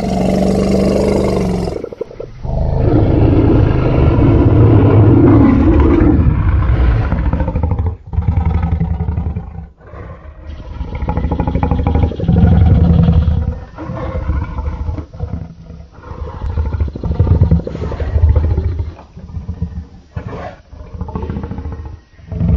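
Creature sound effects built from real animal recordings: a run of deep, loud roars and growls, one long roar of about five seconds near the start followed by shorter calls with brief gaps between them.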